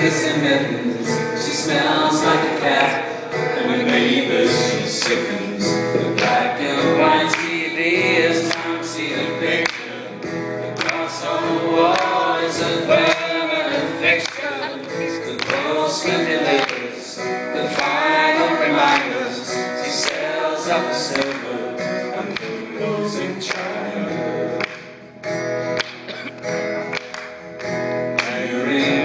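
A song performed live: an acoustic guitar strummed under several voices singing together.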